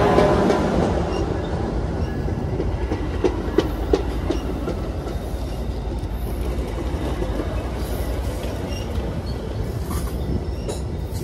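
A Metra diesel commuter train passes close by. The locomotive's engine is loud at the start and fades as the double-deck passenger cars roll past, wheels clacking over the rail joints with a few sharp clicks about three to four seconds in.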